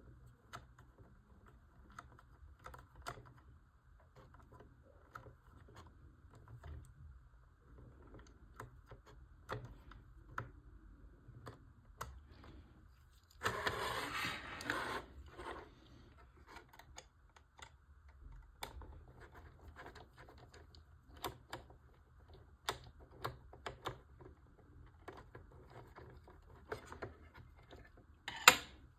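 Small clicks, taps and rattles of plastic model-kit parts and tiny screws being handled and fitted, with a louder rustling burst lasting about two seconds about halfway through.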